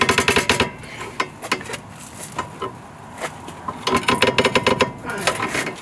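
Rapid metallic clicking in short bursts: a socket ratchet worked back and forth on the car's suspension or differential bolts. There is a longer run of clicks at the start and again near the end, with scattered single ticks between.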